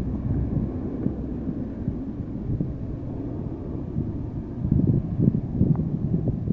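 Low, steady drone of a distant C-130's turboprops, mixed with wind buffeting the microphone. The gusts grow stronger about two thirds of the way through.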